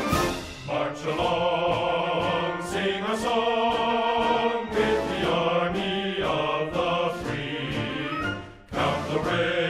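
Background music: a choir singing long, wavering notes in phrases over an orchestral backing.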